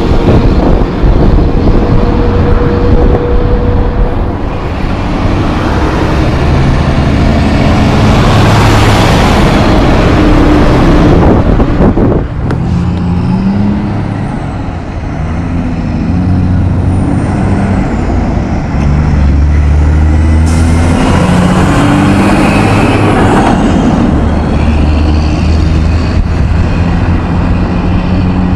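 Heavy truck engines running loud, their pitch shifting up and down, with a sudden change about twelve seconds in.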